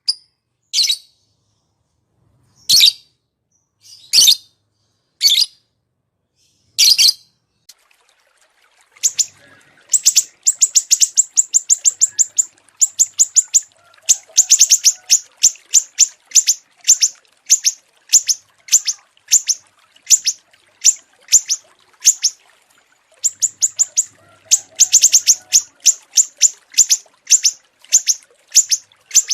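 Small songbirds from a bird-song training (masteran) recording. A few separate sharp high calls come about a second and a half apart, then from about nine seconds in there are rapid, dry trilled phrases repeated one after another with short gaps.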